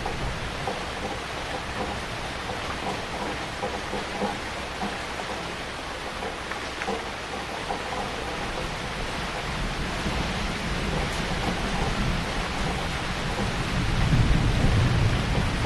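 Heavy rain falling steadily. A low rumble of thunder builds in the second half and is loudest near the end.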